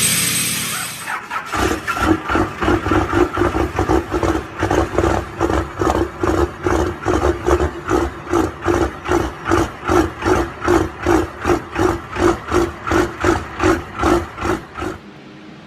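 Diesel engine being cranked over slowly by its starter motor in the cold, with an even chug of about two compression strokes a second over the starter's whine. It never fires, and the cranking stops abruptly near the end.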